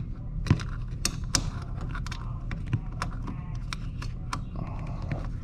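Irregular small metallic clicks and ticks of fingers threading a screw by hand into the metal junction box cover under a Frigidaire dishwasher.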